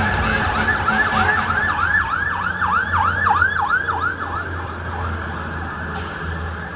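FDNY emergency vehicle siren on fast yelp, rapid rising-and-falling sweeps about four a second over a steady siren tone and low engine rumble, fading away about five seconds in. A short hiss comes near the end.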